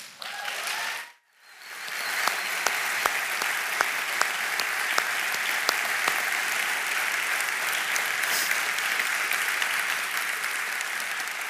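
Congregation applauding. The clapping starts about a second and a half in, swells quickly, then holds steady with a few individual claps standing out.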